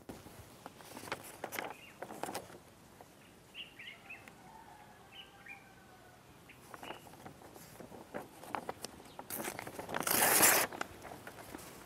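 A sheet of paper rustling as it is handled in someone's hands, with one louder burst of paper noise lasting about half a second near the end. Faint bird chirps in the background partway through.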